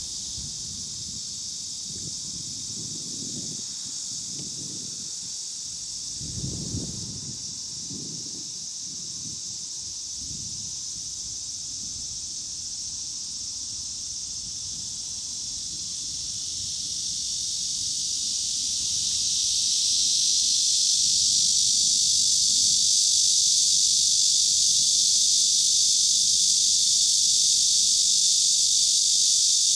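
Chorus of Cryptotympana atrata and large brown cicadas: a steady, high, hissing drone that swells louder a little past the middle and then holds. Low buffeting rumbles come and go in the first third.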